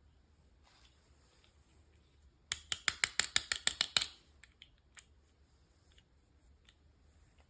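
A rapid run of about a dozen sharp clicks, roughly eight a second, lasting a second and a half, then a few scattered single clicks.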